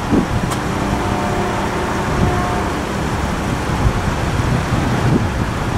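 Steady rumble of passing vehicle traffic, with a few faint steady tones in the first half.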